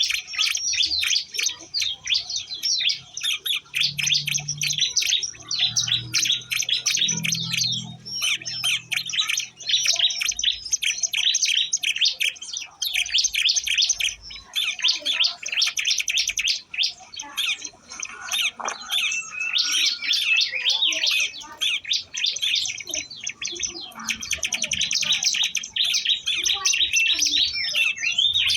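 Ciblek songbirds chirping: a rapid, high, almost unbroken stream of chirps with only brief pauses.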